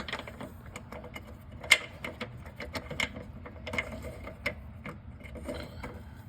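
Irregular metallic clicks and knocks of a bump stop bracket and its bolts being handled and fitted up against the rear axle mount, with one sharper knock a little under two seconds in.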